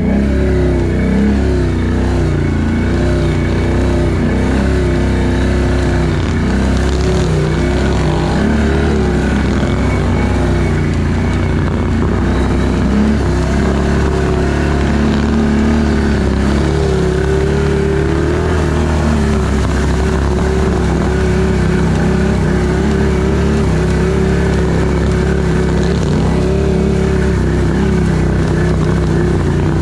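Can-Am ATV engine running as it is ridden off-road, its pitch rising and falling with the throttle.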